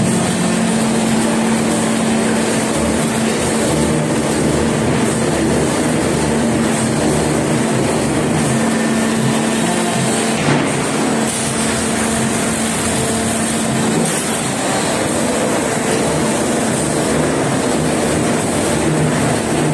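4-foot veneer peeling line running while it peels logs: electric motors and a chain log conveyor give a loud, steady mechanical noise with a constant hum. A single sharp knock comes about ten seconds in.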